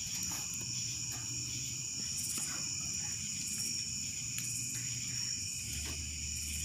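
Steady high-pitched chorus of night insects, with a few faint pops from the burning wood fire.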